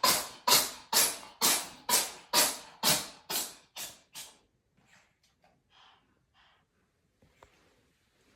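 A rapid fit of sneezes, about two a second, growing weaker and stopping about four seconds in. A few faint short sounds follow.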